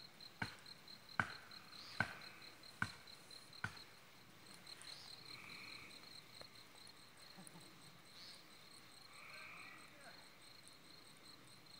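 Hatchet chopping into a pine trunk: five sharp strikes a little under a second apart, stopping about four seconds in. Crickets chirp steadily throughout in a fast, even pulse.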